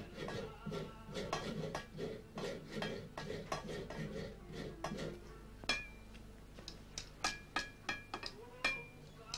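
Clatter of pots and dishes: many light knocks at first, then a handful of separate sharp clinks that ring briefly, about half a second apart, in the second half.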